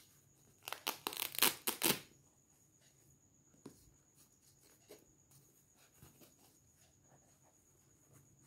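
Hook-and-loop (Velcro) closure of a fabric binocular pouch being pulled open: a crackling rasp lasting about a second, starting near the first second, followed by faint rustles of the cloth pouch being handled.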